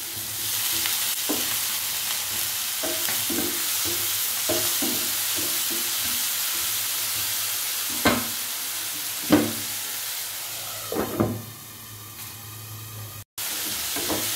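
Onion-tomato masala sizzling steadily in a hot nonstick pan just after a splash of water has gone in. A spatula stirs and scrapes through it, with a few sharper knocks against the pan, the loudest about 8 and 9 seconds in. The sizzle quietens near the end and cuts out for a moment.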